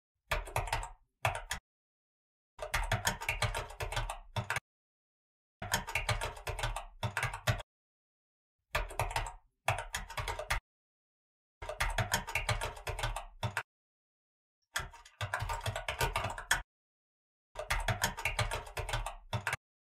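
Rapid keyboard typing clicks in about seven bursts of one to two seconds each, with short silent pauses between them, as a typing sound effect for text typed onto the screen line by line.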